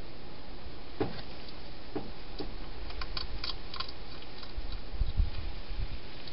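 A hedgehog eating inside a plastic feeding box: scattered sharp clicks of chewing over a steady hiss, a quick run of clicks about three seconds in, and a few low thumps around five seconds in.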